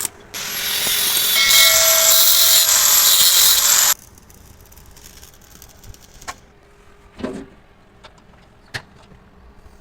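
Loud hiss of compressed air lasting a few seconds, with a faint whistle in it, cutting off suddenly; a few light knocks follow.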